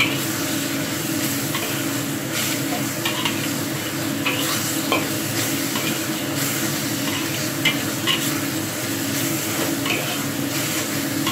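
Ground spice paste with lemongrass stalks sizzling in oil in a black wok on low heat while a metal spatula stirs it, with irregular scrapes of the spatula against the pan about once a second. This is the sautéing of the gulai spice paste until it is fragrant.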